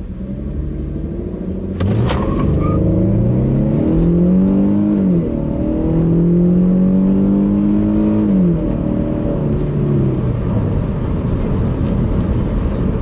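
2006 Infiniti M35's 3.5-litre V6 accelerating hard from a standstill in automatic drive mode. About two seconds in the engine note jumps and climbs. It falls back at an upshift about five seconds in, climbs again, falls at a second upshift at eight to nine seconds, then rises slowly in the next gear.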